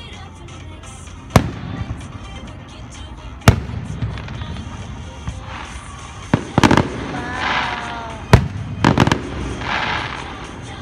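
Fireworks exploding: single sharp bangs a couple of seconds apart, then a quicker run of bangs from about six seconds in, each followed by crackling.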